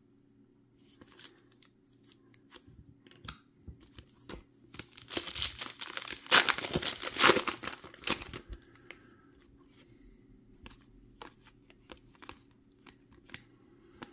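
Foil wrapper of a Topps Pristine baseball card pack being torn open and crinkled, loudest for about three seconds midway. Light clicks and rustles of cards handled before and after.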